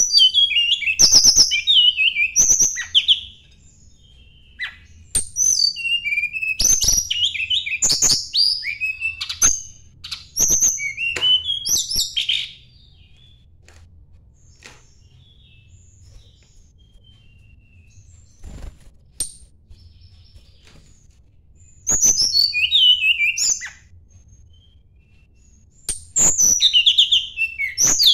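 A tledekan gunung songbird singing rapid, varied whistled phrases in bursts of a few seconds, broken by pauses. This is the challenge song it uses when seeking a rival.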